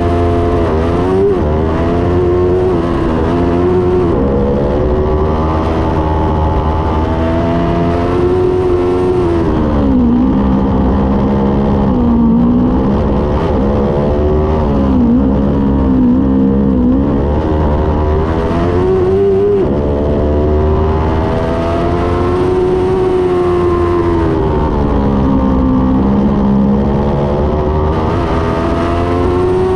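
Open-wheel formula race car's engine heard from the cockpit, revving up and down as the car accelerates and slows between cones, with sharp drops in pitch several times.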